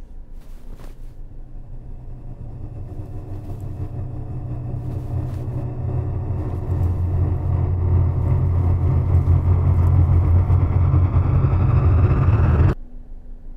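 A low, steady rumble that swells gradually louder for about twelve seconds, then cuts off abruptly near the end.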